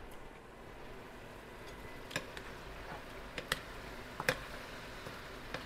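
Chicken braising in soy sauce and vinegar in a wide pan with a steady low sizzle, while a silicone spatula stirs it. From about two seconds in, the spatula knocks against the pan in a handful of sharp clicks, some in quick pairs.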